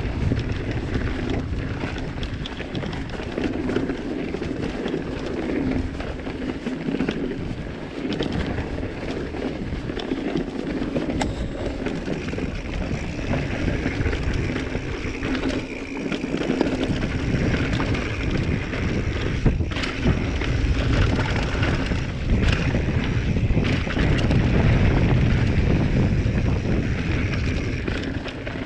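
Giant Trance 3 full-suspension mountain bike descending a dirt trail at speed. Wind buffets the camera microphone over a steady rumble of tyres on the ground. Frequent short knocks and rattles come from the bike over the bumps.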